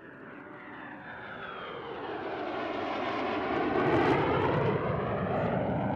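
A jet fighter's engine noise growing louder as it flies past, peaking about four seconds in, with tones that sweep down as it passes.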